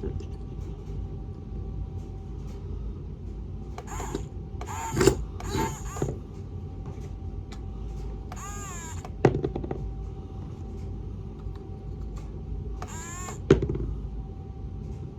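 Small electric motors of a toy RC excavator whining steadily as its arm is worked to pick something up, with three sharp knocks. Several short high-pitched squeals come over the top.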